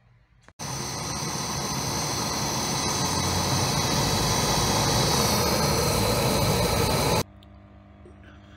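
Hand-held gas torch burning with a loud, steady hiss, its flame lighting the wood chips in a cold-smoke generator. It starts abruptly just after the beginning and cuts off suddenly about seven seconds in, leaving a faint hum.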